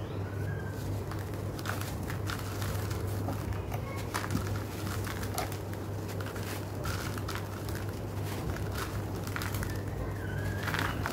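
Hands crumbling lumps of dry sand-cement mix in a bucket: soft, irregular crackles and crunches of the breaking clumps and falling grains, over a steady low hum.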